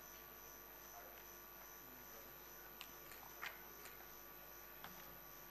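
Near silence: a faint steady electrical hum on the feed, with a few faint clicks about three to five seconds in.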